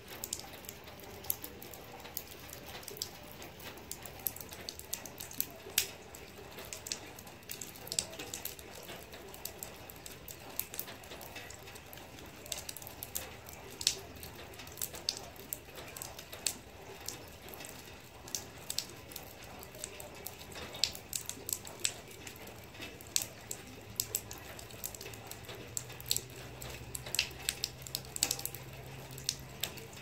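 Rain and dripping water: many irregular sharp taps of drops landing close by, over a soft steady patter.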